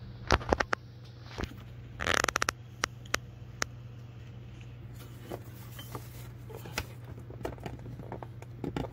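Plastic clicks and rattles as the plastic coolant reservoir is pulled upward to free its side tabs from their slots, with a quick rattling run of clicks about two seconds in and scattered single clicks after, over a steady low hum.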